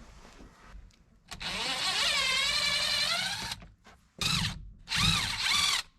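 Handheld power drill motor whirring: one run of about two seconds with a slightly wavering pitch, then three short bursts on the trigger.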